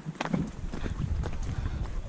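Footsteps walking over a rocky trail, with a low rumble starting about a quarter second in.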